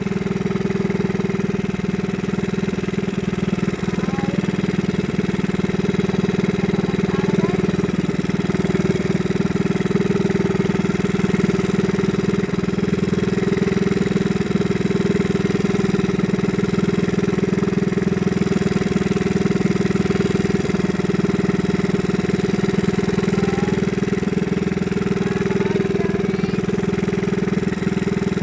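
A fishing boat's engine running steadily at a constant speed.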